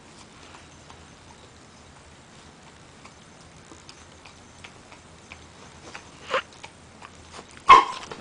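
A dachshund chewing and gnawing on a dry chew, with faint scattered crunching clicks. Two louder short bursts come late, the second the loudest, near the end.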